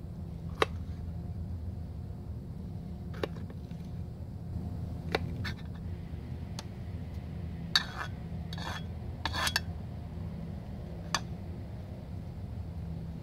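Knife clicking against a cutting board as a green pepper is chopped, and a run of scraping in the middle as the pieces are pushed off the board into a metal cooking pot. A steady low hum runs underneath.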